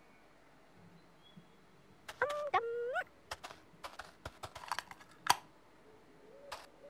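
Toy trumpet giving two short honks about two seconds in, the second sliding up in pitch, followed by a quick scatter of light clicks and taps.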